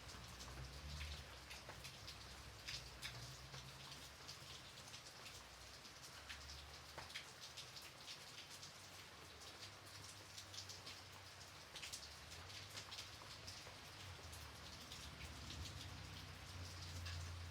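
Gentle steady rain: a soft hiss with many separate drops ticking and pattering, over a faint low rumble.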